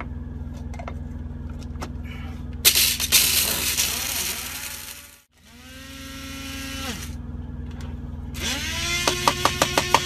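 Electric coffee grinder grinding whole coffee beans in three runs: a loud grinding burst from about two and a half seconds in, a short run where the motor whine rises, holds and dies away, and a third run from about eight and a half seconds in with a rapid rattle of beans.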